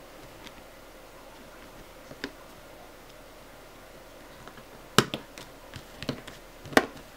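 Small LCD screen assembly being handled and pressed back together by hand: a few sharp clicks and taps, the loudest about five seconds in and again near the end.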